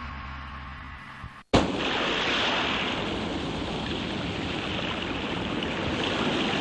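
The tail of a music track fades out, and after a brief break sea surf starts suddenly, waves washing steadily onto a beach.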